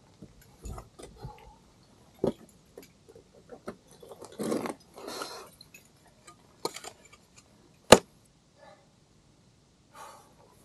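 Ice-climbing gear: metal hardware clinking and jangling, with a few sharp knocks, the sharpest about eight seconds in, and a longer scraping rustle about four and a half seconds in.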